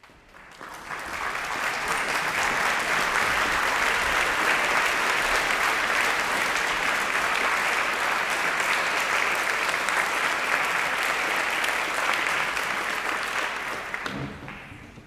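Audience applauding in a concert hall: a dense, steady clapping that swells over the first second or two and dies away near the end.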